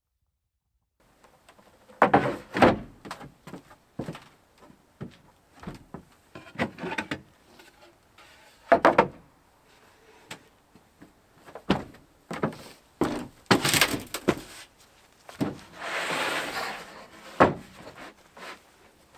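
Irregular knocks, thuds and clatters of parts being handled and fitted during a truck camper installation, with a longer rasping noise lasting about a second near the end.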